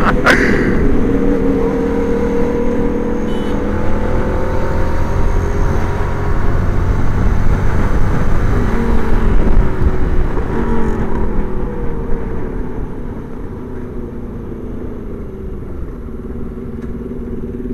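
Onboard sport-motorcycle engine running at road speed under heavy wind blast on the microphone, its pitch gliding up and down with the throttle. It eases off and gets quieter in the last few seconds as the bike slows.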